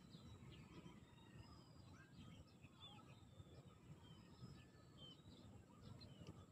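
Faint birdsong: scattered short chirps and whistles from several birds over a low background murmur, close to silence.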